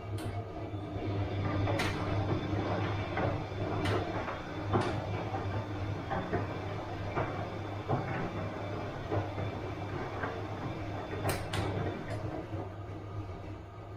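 Bosch washing machine running mid-cycle: a steady low motor hum with the drum turning the laundry, and scattered sharp clicks and knocks from the load, the sharpest about two seconds in and again near the end.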